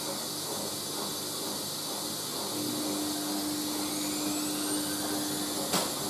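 Dometic WMD1050 compact front-loading washing machine running into a spin: a steady hiss, a hum that joins about two and a half seconds in, and a high motor whine rising from about four seconds in as the drum speeds up toward 450 rpm. One sharp click near the end.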